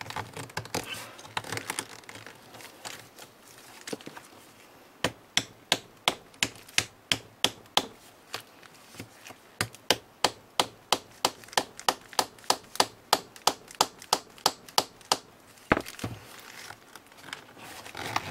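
A run of sharp, even taps, about three a second, starting about five seconds in and stopping near the end, from hand work on a knitting machine's metal needle retainer bar.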